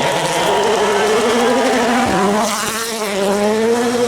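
A spectator's plastic horn, vuvuzela-type, blown in a long buzzing note whose pitch wavers, with a short dip about two seconds in.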